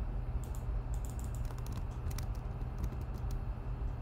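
Computer keyboard keys clicking in short, irregular keystrokes over a steady low hum.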